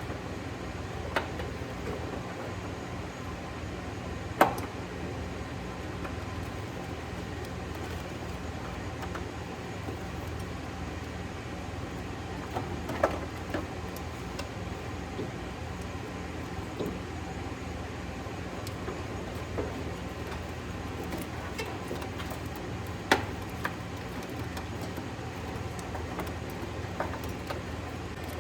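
Steady low hum with scattered sharp knocks and clicks from hands-on work on a car, the loudest about four seconds in, about halfway, and about two-thirds of the way through.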